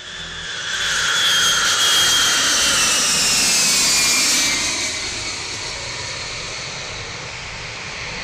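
Four-engine Boeing 707 jet passing low on approach: the engine noise builds to a loud peak, with a high whine falling in pitch as it goes by, then eases to a steady roar.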